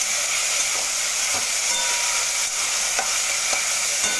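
Diced potatoes and onions sizzling in hot oil in a metal kadai, stirred, with a few short strokes of the spoon against the pan.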